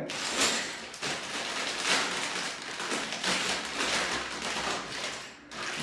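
Thin plastic Lego parts bag crinkling steadily as it is handled and pulled open, with several louder crackles along the way; the crinkling stops shortly before the end.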